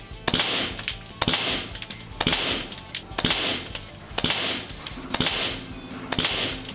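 Umarex Gauntlet .25 caliber regulated PCP air rifle with a shrouded barrel firing seven shots, about one a second. Each shot is a sharp report with a short fading hiss. Background music plays underneath.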